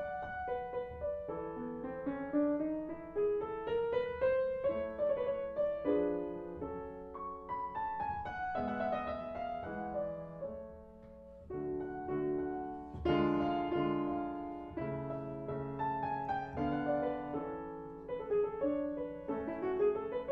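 Background piano music: a melody of single notes running up and down, with a brief quieter passage a little past halfway before fuller chords come in.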